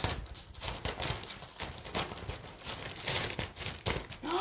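Large plastic bag rustling and crinkling in irregular crackles as it is opened and handled.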